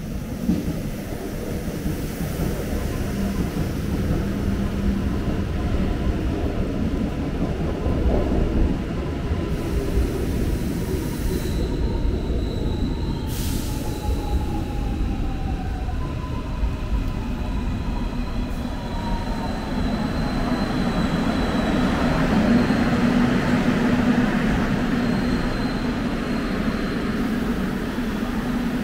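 Seoul Subway Line 1 electric train moving along the platform: a steady rumble of wheels on rail with a thin high squeal on and off and a tone that falls in pitch in the middle, growing loudest about two-thirds of the way through.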